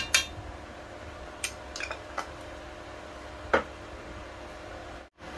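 A metal spoon clinking against kitchenware after spooning spice into a pot: two sharp clinks at the start, a few light ticks, then one more sharp clink about three and a half seconds in, over a faint steady hum.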